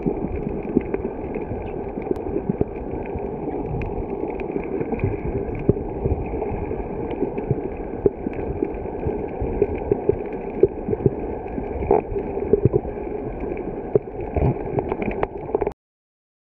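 Muffled underwater noise picked up through an underwater camera's housing: a steady watery rumble and gurgle with scattered small pops and clicks. It cuts off abruptly near the end.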